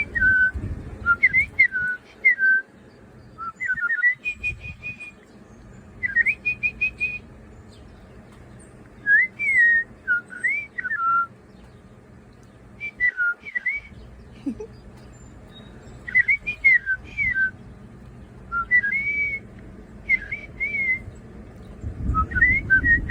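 A woman whistling in imitation of a bird's call: short phrases of quick up-and-down sliding notes, repeated about every two to three seconds with short pauses between.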